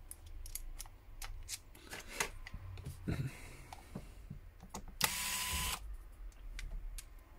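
Pen-style electric precision screwdriver's small motor whirring briefly, for under a second, about five seconds in, as it backs out a Torx screw from a phone's midframe. Before it come light clicks and taps of the tool and bit being handled.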